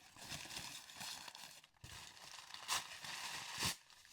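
Paper crinkling and rustling as it is stuffed into a box around the items, faint and irregular, with two louder rustles near the end.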